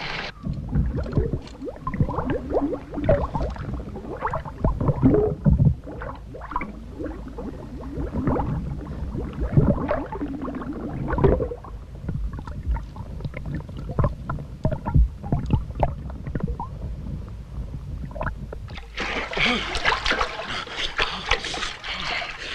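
Water splashing and sloshing in irregular bursts, then a steady rushing of water starting abruptly about nineteen seconds in.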